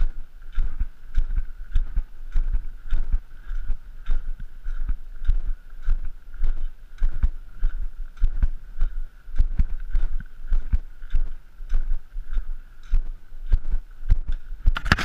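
Footsteps of a hiker walking on a sandy, gravelly trail, heard as a steady rhythm of low thumps about twice a second.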